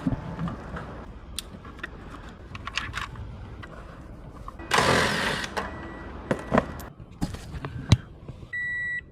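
Scattered clicks and knocks of hand work on a car's dashboard trim, with a short hissing burst about five seconds in. Near the end a car's warning beep starts, sounding in short even pulses.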